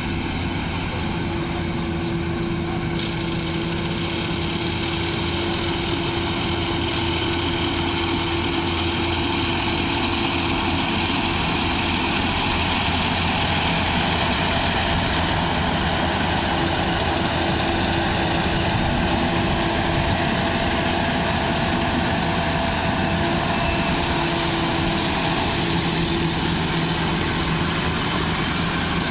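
The engine of a rice-harvesting machine running steadily under a dense mechanical rush; about three seconds in, the higher part of the rush fills in.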